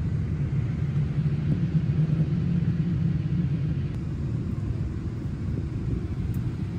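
Steady low rumble of cabin noise inside a Boeing 787 airliner in flight, heard from a passenger seat during the descent toward landing.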